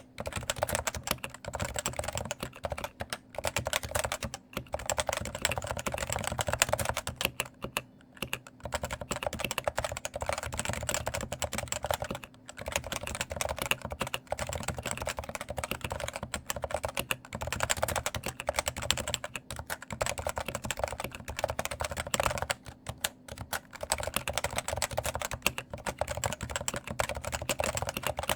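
Continuous fast typing on a Cooler Master NovaTouch TKL keyboard with stock Topre-type electrostatic capacitive switches. The light keycaps clatter noticeably. There are a few short pauses in the keystrokes.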